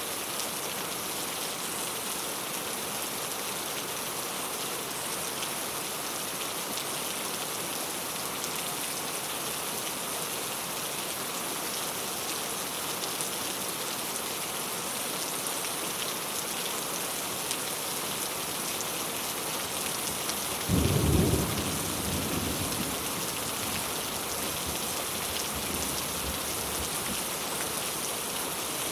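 Steady rain pattering on a clay tile roof. About two-thirds of the way through, a clap of thunder booms and rumbles away over several seconds.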